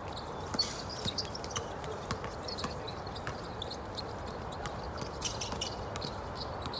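Basketball game sounds: a ball bouncing on the court and players' footsteps, heard as irregular short knocks and taps over a steady background noise.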